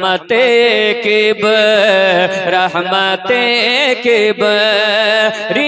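A man singing a naat, an Urdu devotional poem in praise of the Prophet, into a microphone in a slow, melodic style, with long wavering notes broken by short breaths.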